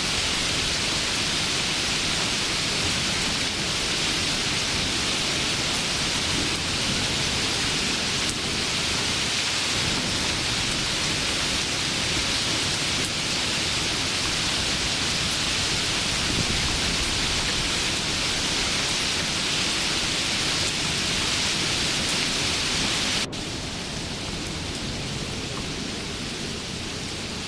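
Steady, dense rain hiss from a rain sound-effect track. About 23 seconds in it cuts abruptly to a quieter, duller rain sound.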